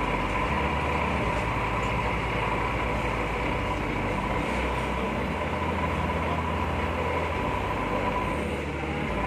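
Excavator running steadily: a constant mechanical noise with a steady high whine over it.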